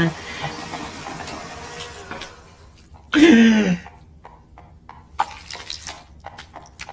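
Faint rushing noise, then about three seconds in one short voiced sound from a person that falls in pitch, followed by scattered small clicks and rustles.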